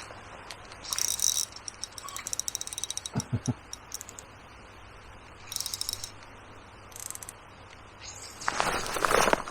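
Short bursts of clicking and rattling from fishing tackle being handled, with a quick run of fine clicks about two seconds in, a few dull knocks, and a louder rustle near the end.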